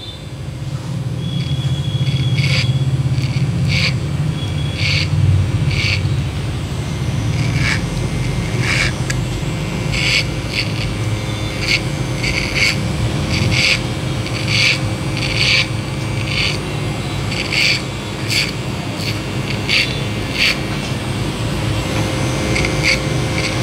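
Single-blade electric hair clipper running with a steady low hum while it cuts hair over a comb, with a string of short crisp snips about once or twice a second as the blade bites into the hair.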